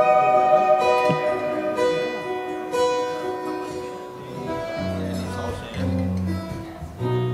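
Background music: plucked, guitar-like notes at a slow, even pace, about one a second, joined by low bass notes about five seconds in.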